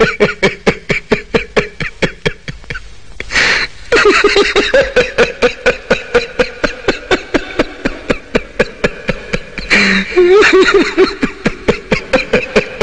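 A man laughing hard and long, in rapid loud "ha-ha" pulses of about six a second, with short breaths between runs.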